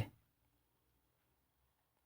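Near silence: a pause between spoken phrases, with only faint room tone.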